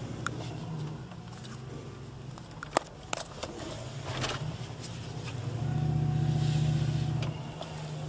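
Old Dodge pickup's engine running, heard from inside the cab. The engine note swells for a couple of seconds late on, then eases. A sharp click and a few lighter ones come near the middle.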